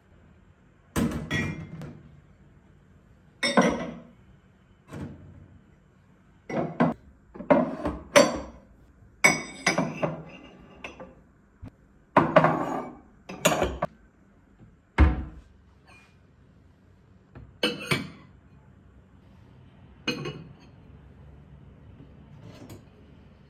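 Irregular knocks and clinks of hard objects being handled and set down, a dozen or so, some ringing briefly like glass or dishes, with one heavier thud about two-thirds of the way through.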